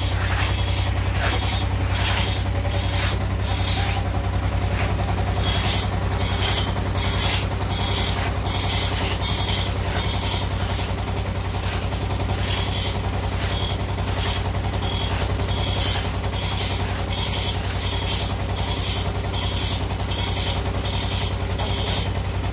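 Long two-man hand saw ripping lengthwise through a teak slab: regular sawing strokes of the teeth in the wood, about one and a half a second, with a brief pause about four seconds in. A steady low hum runs underneath.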